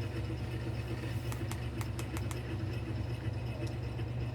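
A steady low hum with faint scattered clicks.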